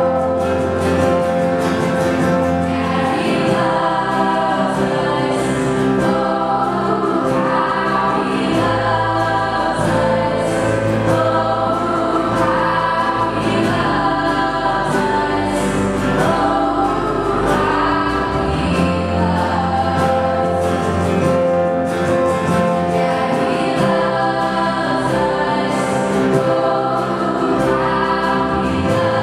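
Live band performance: several female singers singing together with microphones over acoustic guitar and full band backing.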